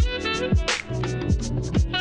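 Music with a steady beat: low drum hits that drop in pitch about twice a second, under bright percussion and sustained instrumental notes.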